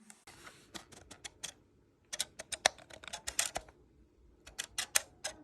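Quick runs of light plastic clicks in three bursts: a foam-dart blaster being reloaded after running out of darts.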